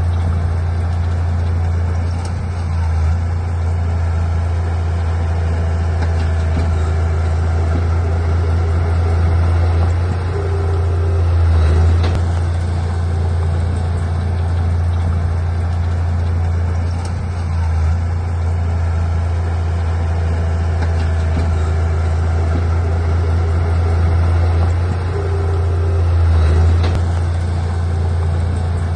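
Heavy diesel engine of earthmoving equipment running steadily with a deep drone, swelling louder twice, around the middle and near the end, as it works under load.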